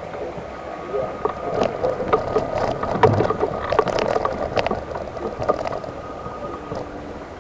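Electric wheelchair on the move: a steady motor whine under a run of knocks and rattles, busiest from about one to six seconds in.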